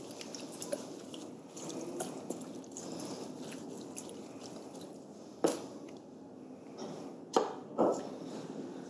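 Wet slapping and squelching of raw whole chickens being handled and pressed into shape on a cutting board. There are three sharp knocks in the second half, two of them close together near the end.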